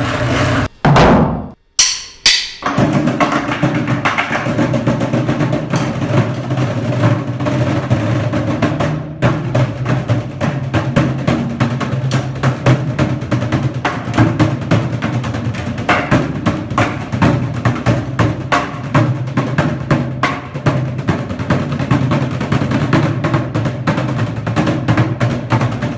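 Upturned plastic construction buckets beaten with drumsticks by three drummers: fast, dense rhythms that begin about two and a half seconds in, after a few brief loud sounds, with a short break near nine seconds.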